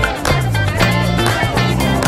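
Background music: a track with plucked guitar over a bass line.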